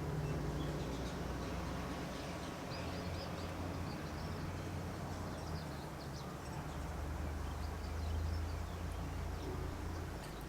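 Steady background ambience with a low hum, and faint short bird chirps scattered through it.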